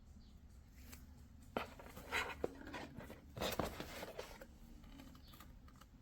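Handling noise: a cluster of irregular sharp clicks and short scraping rustles between about one and a half and four and a half seconds in, over a low hum.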